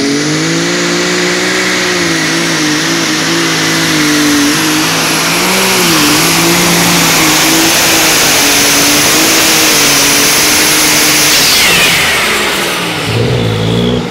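Pulling tractor's engine run hard under load down the track, its pitch wavering up and down, with a high steady whine over it. About twelve seconds in the throttle comes off and the engine sound falls away.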